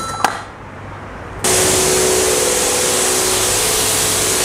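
A short beep and a click from the coin car wash's control panel. About a second and a half in, the bay's high-pressure washer starts abruptly: a loud, steady hiss of the jet spraying onto a van's bodywork, with the pump's hum underneath.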